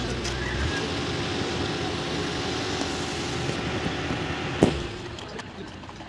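Engine-driven construction machinery running steadily at a concrete pour. A deep low hum drops out under a second in, and a single sharp knock comes about two-thirds of the way through before the sound gets quieter.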